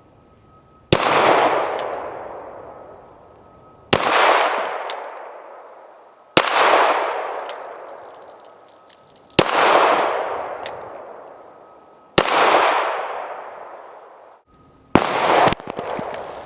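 Six shots from a Smith & Wesson .45 ACP revolver, fired slowly about every three seconds, each crack followed by a long echo that dies away over about two seconds.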